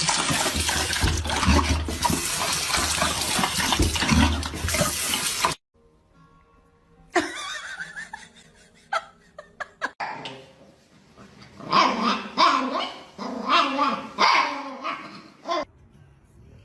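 A loud, even rushing noise that cuts off abruptly after about five and a half seconds. After a short gap comes a dog barking in irregular runs of short barks.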